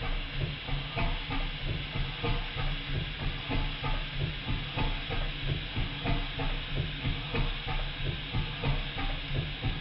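Stuart 5A model steam engine running steadily on compressed air: a regular chuff of exhaust, about three beats a second, with mechanical knocking. The knocking is the engine rocking on the soundboard it stands on, which amplifies its mechanical noise.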